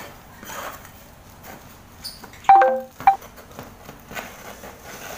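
Dry droppings and seed husk bedding being scraped and shaken off a lovebird cage tray into a plastic bin, with soft rustling and scraping. Just past halfway comes a loud ringing knock as the tray strikes the bin, falling in pitch, then a shorter second knock.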